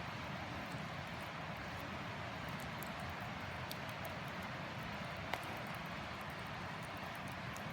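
Wood campfire burning: a steady hiss with frequent small crackling pops and one sharper snap about five seconds in.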